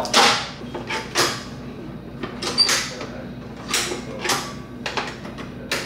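Needle-nose pliers working jammed gummed paper tape out of a Better Packages BP555e tape dispenser, with about half a dozen irregular scrapes, rustles and small knocks of paper and parts.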